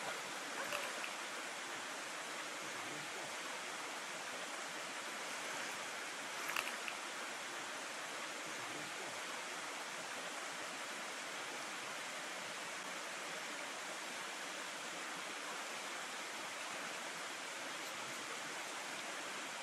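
Steady rushing of a rocky creek's water flowing over stones, with one brief sharp click about six and a half seconds in.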